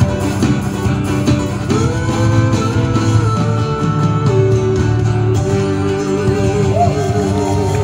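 Live band music through a PA, led by guitar. A male voice comes in about two seconds in, singing long held notes that waver.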